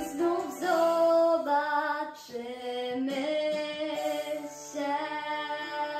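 A girl singing long held notes with no clear words over a pop backing track, in the closing bars of the song.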